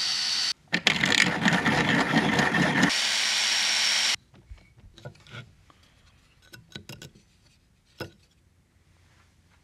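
A cordless drill runs, boring into an epoxy-coated wooden base, in loud stretches that stop abruptly about four seconds in. Then light clicks and taps of wooden pieces being fitted together, with one sharper knock near the end.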